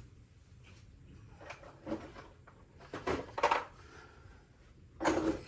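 Metal hand tools and sockets clinking and clattering as they are rummaged through and set down by hand, in a few short bursts about two, three and five seconds in.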